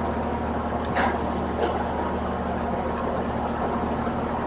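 Outdoor heat pump unit running steadily with a low electrical hum from its compressor and fan. It has been forced on by wiring the contactor around the control board, which the technician suspects is bad. A few faint clicks sound over it.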